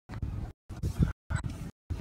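Corrupted recording: the audio keeps dropping out, coming through as short fragments of low rumbling noise about twice a second, each cut off by dead silence.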